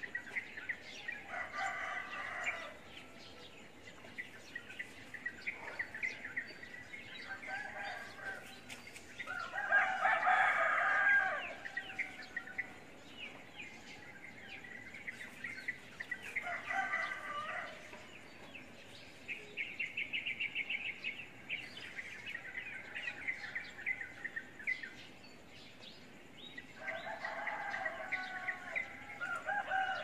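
A flock of peach-faced lovebirds chirping and chattering steadily, with louder bursts of harsh, squawking calls every several seconds, the loudest about ten seconds in, and a quick run of rapid chips around twenty seconds in.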